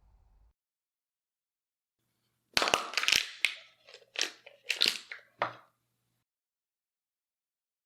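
A quick run of about six sharp crunches over some three seconds, then silence.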